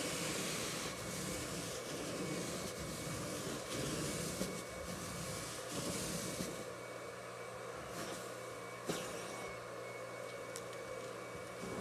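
Carpet extraction wand hissing as it is stroked across carpet under suction, the noise rising and falling with each pass. About six seconds in the strokes stop and the extractor runs on more quietly with a low, steady hum; a single knock comes about nine seconds in.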